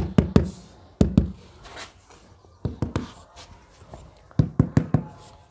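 Rubber mallet tapping a marble floor tile down into its mortar bed: four quick runs of sharp knocks, two to six at a time, with short pauses between.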